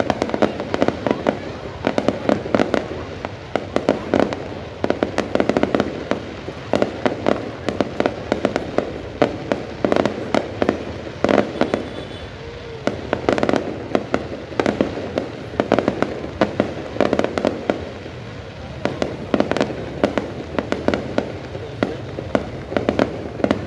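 Fireworks display: rapid volleys of sharp bangs and pops, coming in dense clusters with short lulls between them.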